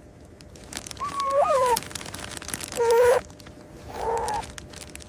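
A black panther cub mewing: three short, high cries, the first bending down in pitch, over soft rustling.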